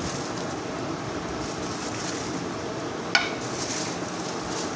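Steady background hiss, with a single sharp metallic clink about three seconds in as a spoon knocks against a steel mixing bowl while yogurt is added.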